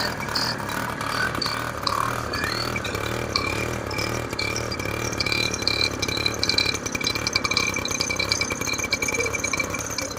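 TVS Scooty ES two-stroke engine running with a steady rattly idle, its carbon-choked silencer freshly cleaned.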